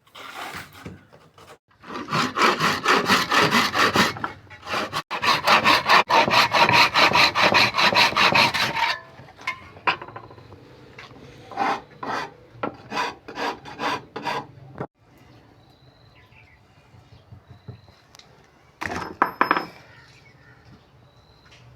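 A hand tool worked back and forth on wood in fast, rhythmic strokes, sawing or scraping. There are two long runs of strokes, then shorter scattered ones.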